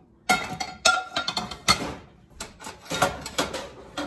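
Large frying pan clattering as it is handled and set on the stovetop: a quick, irregular run of knocks, some with a short metallic ring.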